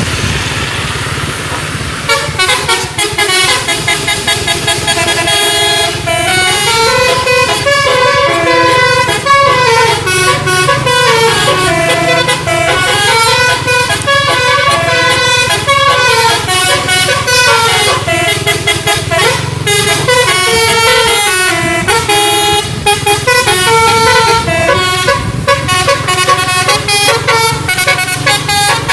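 A bus's musical telolet basuri horn playing a melody of stepped notes that climb and fall in repeating phrases, over road noise. The horn comes in about two seconds in and keeps playing.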